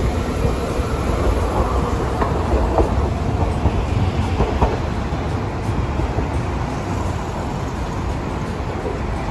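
Hiroden 800-series streetcar rolling past close by and pulling away along the street track, its wheels rumbling with a few clicks over the rails. City road traffic runs underneath.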